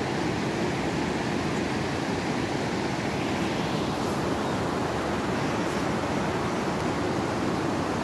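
Fast-flowing mountain river rushing steadily over rocks and rapids, an even, unbroken rush of water.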